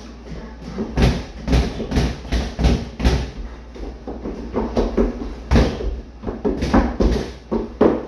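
Boxing gloves thudding against a punching bag in irregular flurries of quick punches, with a short lull near the middle.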